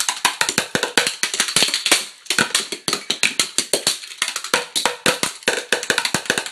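Drumsticks striking a pile of plastic children's toys in a fast drum solo: rapid hits, many per second, with a brief pause about two seconds in.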